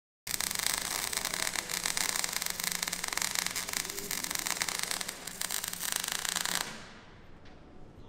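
Electric arc welding on the steel hull of a Churchill tank: a dense, steady crackle that cuts off suddenly about a second before the end, leaving faint workshop background.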